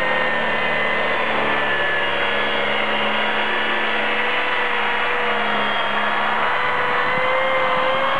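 Cordless plunge track saw running as it is pushed along its guide rail through a cut, a steady motor-and-blade whine whose pitch rises slightly near the end.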